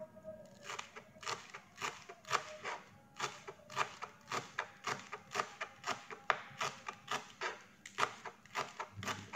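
Small kitchen knife slicing green onions against a plastic cutting board: a steady run of short chopping taps, about two to three a second.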